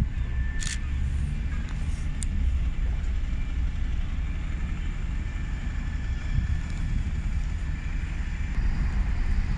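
Diesel single-decker bus driving past with its engine running, over a steady low rumble. There is a short sharp click under a second in.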